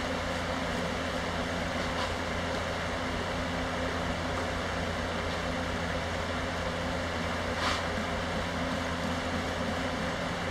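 Large electric fan running with a steady drone and low hum. A brief faint noise about two-thirds of the way through.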